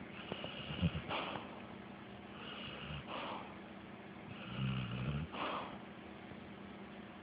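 Pit bull snoring in its sleep: three slow snoring breaths about two seconds apart, each a low snore followed by a rougher, airy breath.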